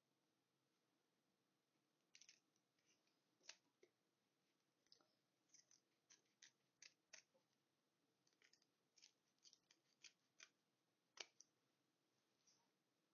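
Small scissors snipping through linen fabric: a quiet run of short, irregular snips starting about two seconds in, with one louder snip near the end.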